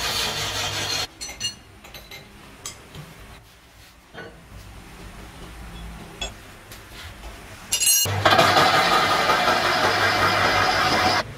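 Metal lathe running with a steel truck rim spinning in its chuck as the cutting tool turns it, a loud steady scraping noise over a low motor hum, for about a second at the start and again from about eight seconds in. In between, a quieter stretch with a few light metal clinks as the cutting bit is handled and fitted in the tool post.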